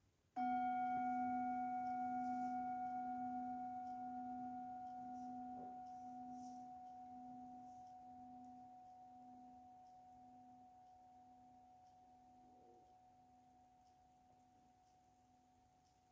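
Metal singing bowl struck once, then ringing out slowly with a low hum and a higher overtone. The low tone pulses gently as it fades.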